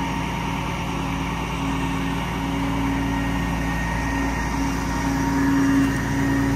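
Heavy truck's Cat diesel engine idling steadily, with a low rumble and a hum that swells and fades a little.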